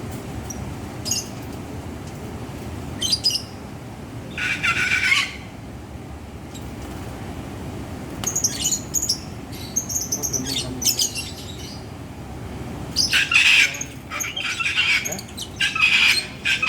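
Lovebirds giving short, shrill squawking calls, scattered at first and coming thick and fast in the last few seconds, over a steady low background hum.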